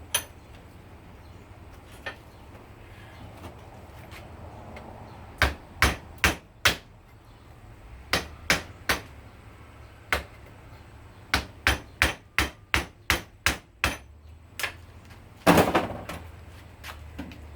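Hammer blows on a chisel against a metal hose end fitting, splitting it open to free the stainless braid: short runs of sharp metallic strikes, a quick series of about eight in a row, then one loudest blow near the end that rings on briefly.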